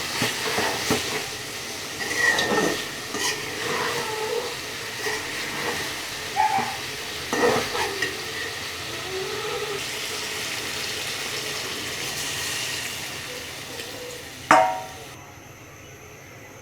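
Food sizzling in a frying pan while a spatula stirs and scrapes against the pan, with scattered clicks. There is one sharp knock near the end, after which the sizzle drops away.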